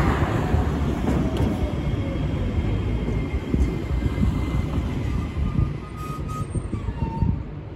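A car passes close by at the start, then an Iyotetsu 5000-series low-floor tram rolls along the street track and slows to a stop, with a low rumble and a few brief faint whining tones as it brakes.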